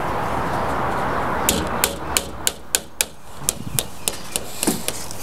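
Hammer tapping nails or staples into the wooden gable trim of a chicken coop: a run of light, sharp taps at about three a second, starting about a second and a half in after a steady rushing noise.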